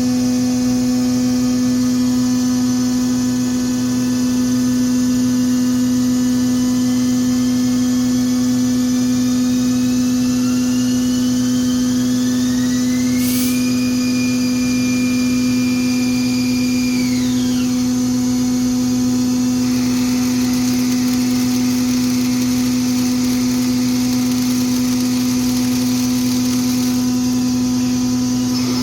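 2014 Haas ST-30 CNC lathe running a machining cycle: a steady electrical-mechanical hum with a whine that climbs slowly in pitch for about ten seconds, holds level, then drops quickly about 17 seconds in. A single sharp click about 13 seconds in.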